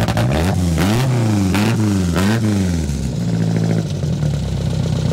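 Ford Anglia 105E's 1.6 crossflow engine on twin 40 Weber carburettors, revved in three quick blips and then settling into a steady idle.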